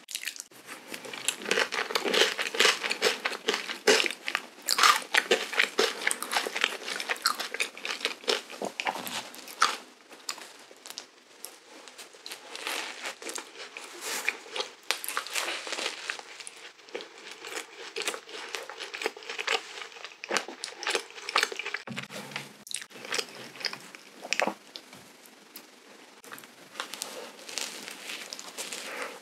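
Close-miked eating of soft, sugar-dusted cream-filled donuts: bites, wet chewing and smacking of whipped cream and dough, with light rustling from handling the pastry. It is busiest and loudest in the first ten seconds or so, then quieter.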